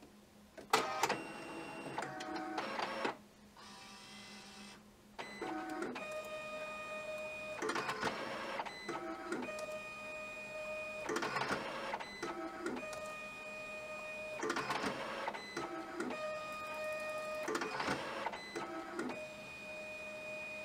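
HID Fargo DTC4250e ID card printer running a colour test print. A sharp click and a whir come about a second in as a card is drawn in. Then follow repeated printing passes, each a steady multi-pitched motor whine lasting a few seconds, separated by short rattling whirs about every three seconds.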